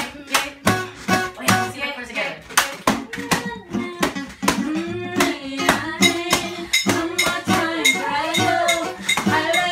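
Acoustic guitar strummed in a steady rhythm, about three strokes a second, with a voice singing along over it from a couple of seconds in.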